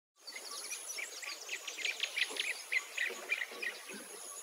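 Small birds chirping in quick, repeated short notes over a steady high-pitched insect drone.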